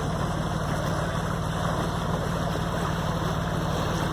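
A ship's engine running with a steady low drone.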